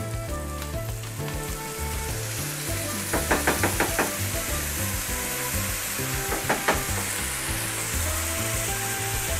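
Diced tomatoes going into a pan of frying onions and bell peppers and sizzling in olive oil. A spatula scrapes and stirs, with quick runs of clicks about three seconds in and again near seven seconds. Background music plays underneath.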